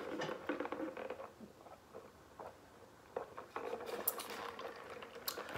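Faint wet mouth clicks and lip smacks of someone eating and sipping soda through a straw, with a near-quiet stretch about halfway through and a couple of sharper smacks near the end.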